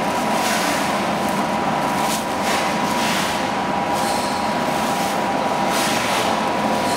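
Shrink wrapping machine running with a steady mechanical hum and a constant high whine, while clear plastic shrink film rustles and crackles in short bursts as it is pulled and threaded through the machine.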